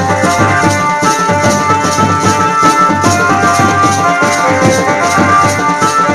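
Instrumental music from an Adivasi folk song: a melody of held notes over a steady percussion beat, without singing.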